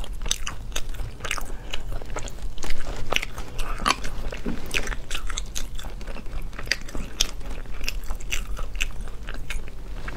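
Close-miked eating of small sea snails: quick, irregular clicks of shells and a toothpick prying out the meat, mixed with chewing.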